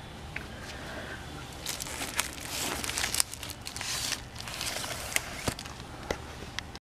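Crinkling and rustling handling noise close to the microphone, with scattered sharp clicks, strongest from about two to five seconds in, over a steady low hum.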